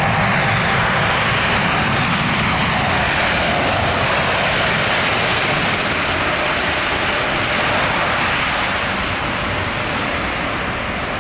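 Boeing 777 freighter's twin GE90 turbofan engines running as the jet rolls past on the runway: loud, steady jet noise that grows brighter about halfway through, then eases slightly as the aircraft moves on.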